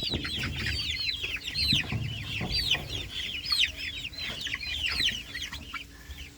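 A flock of chicks four to six weeks old peeping continuously, many short, high calls that fall in pitch overlapping one another.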